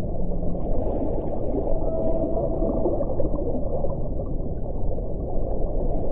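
Whale sounds over a dense, low underwater-style rumble, with a faint, drawn-out call held steady about two seconds in.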